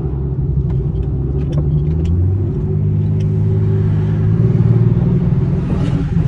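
Nissan 370Z's 3.7-litre V6 engine pulling hard, heard from inside the cabin. Its note steps up about two seconds in and climbs slowly, then dips briefly near the end before rising again.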